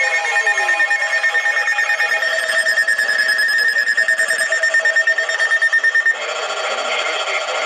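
NOAA Weather Radio receiver sounding its alert: a steady high-pitched alarm tone that pulses about four times a second, then cuts off about six seconds in as the radio broadcast comes back.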